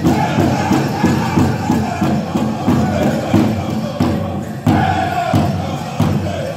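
Powwow drum group singing high chanted vocals over a steady, even beat on the big drum. The sound dips briefly a little after four seconds in, then comes back with a sharp, loud beat.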